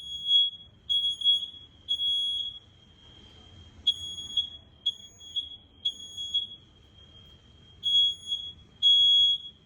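Fire alarm hooter sounding a steady high-pitched electronic tone during a drill test, switched on from the fire alarm control panel. The tone swells loud roughly once a second, with quieter stretches in between.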